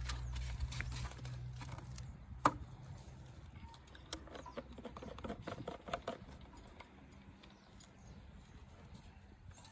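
Scattered clicks and light knocks of hands working on a small two-stroke brush-cutter engine that is not running, with one sharper knock about two and a half seconds in. A low hum fades out about two seconds in.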